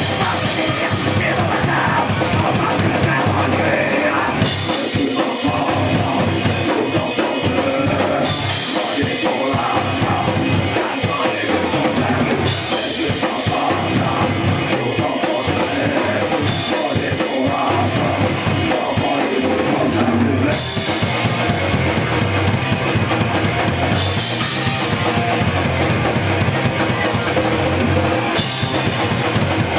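A rock band playing live: electric guitar, bass guitar and a drum kit driving a steady rock beat, with the cymbals dropping out briefly every few seconds.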